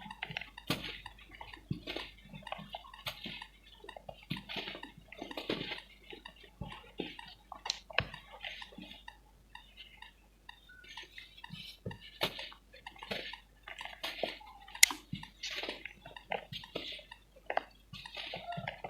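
Hardened pure cement being crumbled, an irregular run of crunching and crackling with a few sharp snaps.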